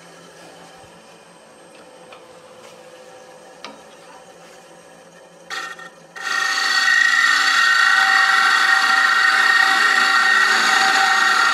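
Wood lathe running quietly, then about six seconds in a turning tool meets the spinning maple platter and cuts with a loud, steady scraping, scoring lines into the face for a basket-illusion pattern. A brief touch of the tool comes just before the cut settles in.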